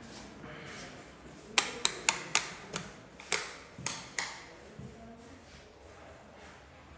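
Footsteps on a bare polished tile floor: about eight sharp clicks at an uneven walking pace, each with a short echo in the empty room.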